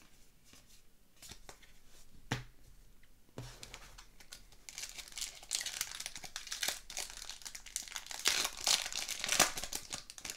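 Foil trading-card pack wrapper being torn open and crinkled by hand. A few sharp clicks come first, then a dense rustle that builds for about six seconds, loudest near the end.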